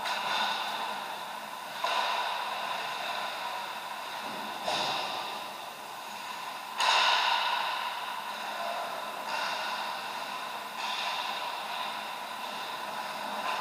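Ice hockey play on a rink: skate blades scraping and carving the ice in noisy surges that start suddenly every couple of seconds and fade, over a steady hum.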